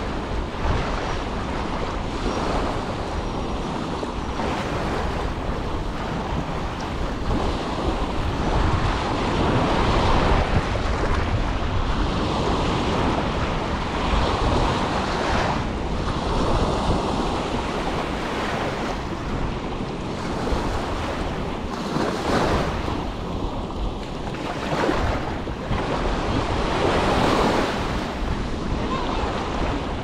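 Small waves washing onto a sandy beach at the water's edge, the surf swelling and easing every few seconds, with wind rumbling on the microphone.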